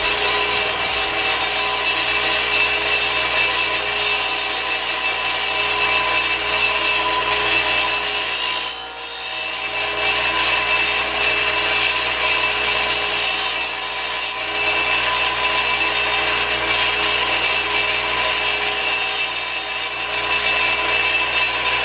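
A bench grinder's spinning abrasive wheel grinds the edge of a steel lawn mower blade: a loud, steady scraping hiss over the motor's hum. The hiss shifts every few seconds as the blade is worked across the wheel.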